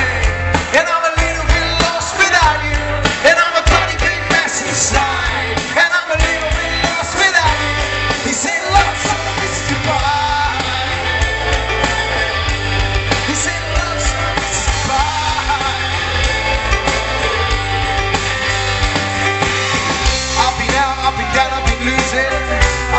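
Live rock band playing a song with a lead singer, amplified loud with a heavy bass line.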